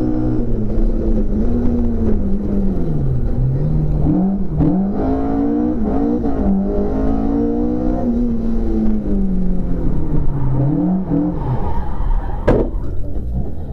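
Ford Escort RS1800's Cosworth BDA twin-cam four-cylinder engine heard from inside the cabin at speed. The engine note falls, then jumps up and down several times as the car changes down from fifth to second gear, holds, then falls and climbs again. One sharp crack near the end.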